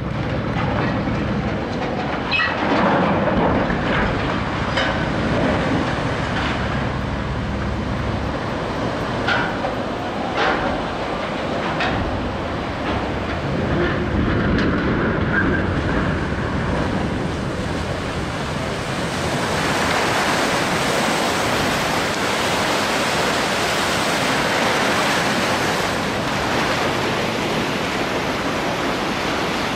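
A cargo ship launched sideways into a river: a rumbling, clattering slide with several sharp knocks, giving way after about twenty seconds to a steady hiss of the launch wave and churning water.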